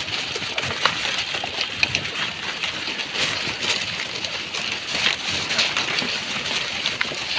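Herd of black pigs foraging across a rubbish dump, their trotters and snouts rustling through plastic litter: a steady crackling rustle with many small clicks.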